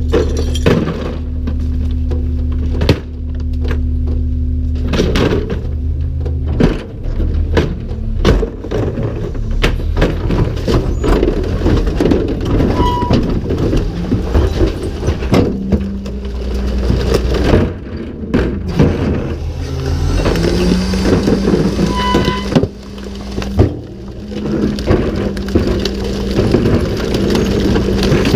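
Recycling truck's hydraulic cart tipper lifting a recycling cart and upending it into the hopper, over the running truck engine, with frequent knocks and clatters of the cart and the falling recyclables. The engine's hum rises in pitch about twenty seconds in.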